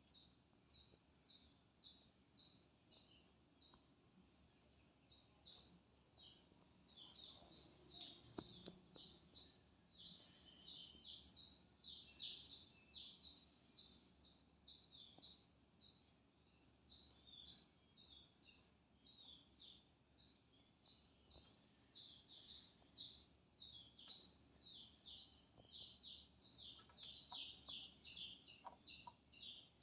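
A chick peeping: a steady run of short, high, falling peeps, about two to three a second, faint. One soft knock about eight seconds in.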